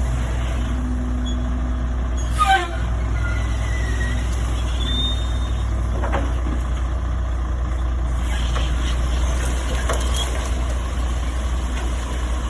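Detroit Diesel 11.1 L Series 60 engine of a 1996 Ford LTL 9000 dump truck running steadily while it dumps tree debris. A short, loud hiss with a falling squeal comes about two and a half seconds in, followed by faint squeaks and knocks from the bed.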